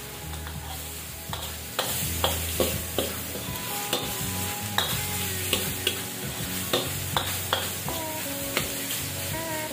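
Spatula stirring and scraping chicken pieces around a metal wok over the heat, with a steady frying sizzle and about a dozen sharp clanks of the spatula against the pan, starting about two seconds in.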